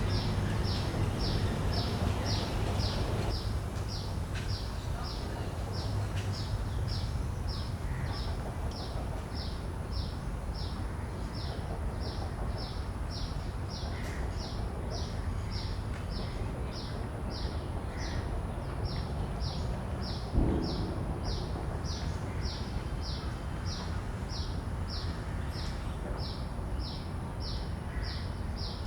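Cicadas calling: a steady train of short, high-pitched pulses, about two a second, each falling slightly in pitch, over a low background rumble of the park. One brief low thump sounds about two-thirds of the way through.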